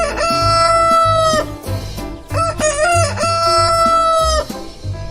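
Rooster crowing cock-a-doodle-doo twice, each crow ending in a long held note that drops at the end, over background music with a steady beat.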